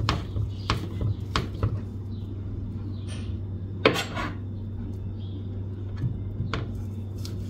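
Kitchen utensils clinking and knocking against dishes in a handful of scattered sharp clicks, the loudest about four seconds in, over a steady low hum.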